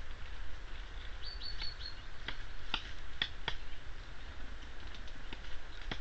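A bird gives a quick run of four short, high, falling chirps, followed by a few sharp taps or knocks less than half a second apart.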